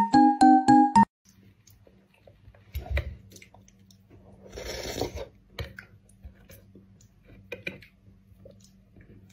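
A bright plucked-note melody that cuts off about a second in, then quiet room sound: a low steady hum with scattered faint clicks and taps, and a soft breathy rustle near the middle.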